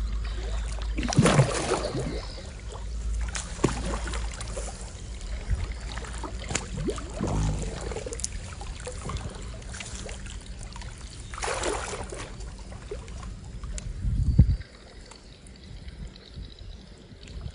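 Water splashing and sloshing in a few noisy surges, strongest about a second in and again near twelve seconds, over a steady low rumble that cuts off suddenly late on.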